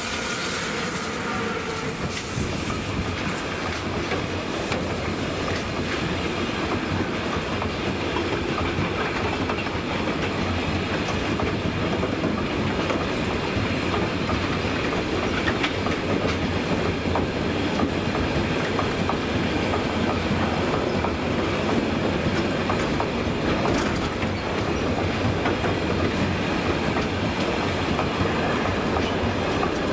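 Freight train of enclosed double-deck car-carrier wagons rolling past close by, a steady loud rumble of wheels on the rails that builds slightly as the wagons go by. At the start the Class 185 (Bombardier TRAXX) electric locomotive hauling it passes, adding a faint whine that soon fades.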